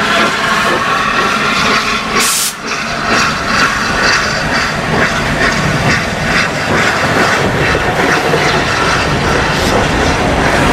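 LNER A4 Pacific steam locomotive 60007 moving slowly past, with a steady hiss of steam and the clanking of its wheels and motion on the rails. A brief, sharper hiss comes about two seconds in.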